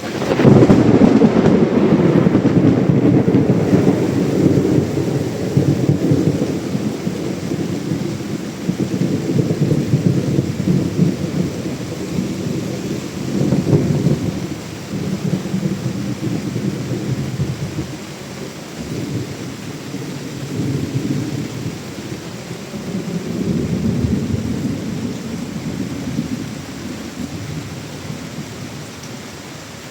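A thunderclap breaking suddenly at the start, then rolling into a long low rumble that swells again about halfway through and later on, slowly dying away, over the steady hiss of heavy monsoon rain.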